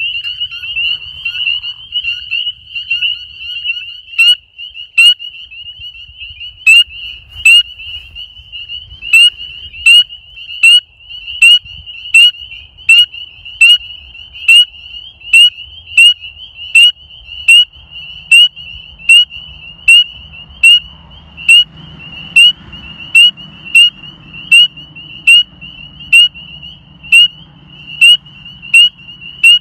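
Spring peeper calling: loud, short, rising peeps about once a second, starting about four seconds in, over a steady high-pitched chorus of other spring peepers.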